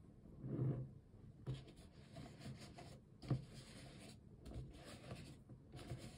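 Handling noises from a Kirby Halloween candy pot being turned over: a soft thump about half a second in, then irregular bursts of rubbing and rustling with a sharper knock past the middle.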